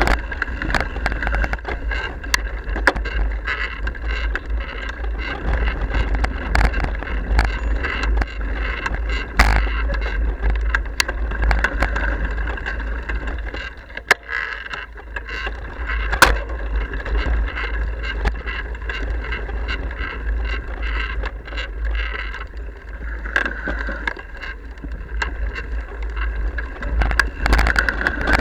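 Mountain bike riding over rough single-track trail: a continuous rattle with many sharp knocks from the bike over the ground, over a low rumble of wind on the microphone.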